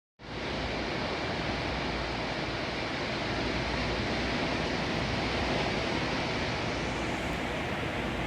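Ocean surf: a steady, even rush of breaking waves with no distinct wave-by-wave swells, starting abruptly just after the start.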